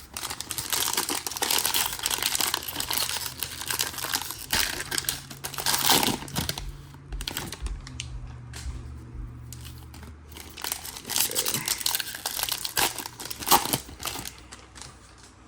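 A Prizm basketball card pack wrapper being torn open and crinkled by hand, crackling in bursts that are densest in the first half, ease off briefly, then pick up again near the end.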